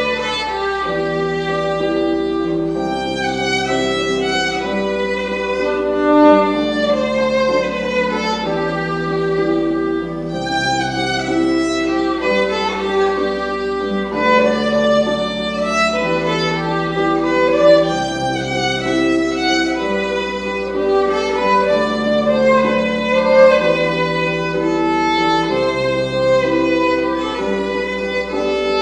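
Violin played by a young student: a melody of bowed notes held about half a second to a second each, with no pause.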